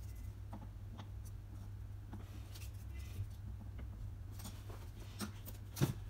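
Light clicks and taps of plastic computer cooling fans being handled and set down on aluminium bars, with a louder knock near the end, over a low steady hum.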